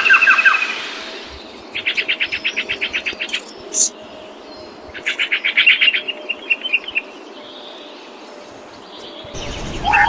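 A bird giving two fast runs of high chirps, each lasting about a second and a half. The second run trails off into a few softer chirps.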